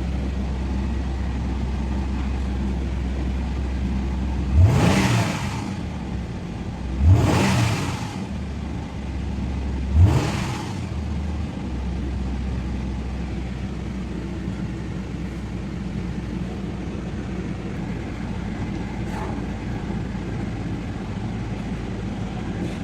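Nissan VQ25 2.5-litre V6 engine idling steadily and revved three times in quick blips, each rising and then falling back to idle. It is running again after a no-crank, no-start fault was fixed.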